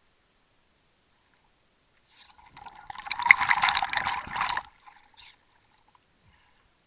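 Water sloshing and gurgling against the camera as it dips under the surface: a crackly burst of about three seconds starting about two seconds in, with a brief splash about a second after it.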